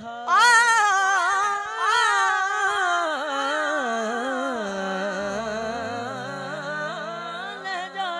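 Male naat reciter singing a long, ornamented phrase with vibrato through a microphone, loudest as it begins about half a second in. A low hum joins underneath about halfway through.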